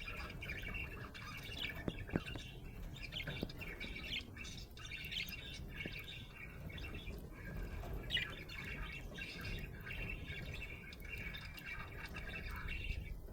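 Budgerigar chirping and chattering continuously, with rapid short chirps and squawks.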